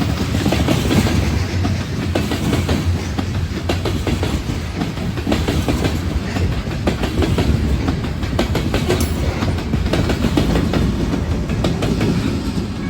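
Train rolling past, its wheels clattering over the rail joints with a steady low rumble underneath.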